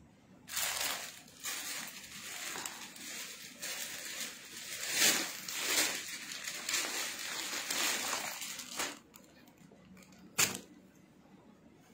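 Clear plastic garment packaging crinkling and rustling as it is handled, for about eight seconds, then a single short click near the end.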